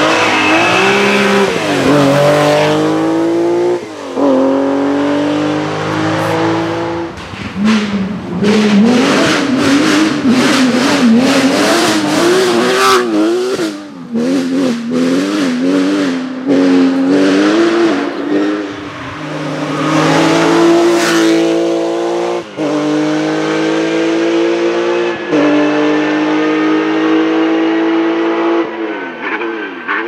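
Porsche 911 rally cars at full throttle, one after another, their flat-six engines revving hard and shifting up through the gears. A stretch of rapid crackles in the first half.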